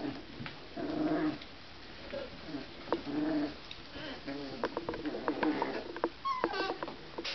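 Basset Artésien Normand puppies about three and a half weeks old, vocalizing in short bouts as they play-fight. Near the end come small knocks and scrabbling.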